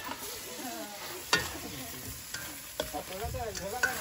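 Shrimp sizzling in a stainless steel wok while a metal spoon stirs them, with a few sharp clinks of the spoon against the pan.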